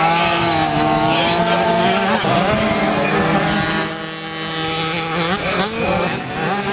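Several small 50cc race motorcycle engines revving, their pitches rising and falling and overlapping as the bikes race.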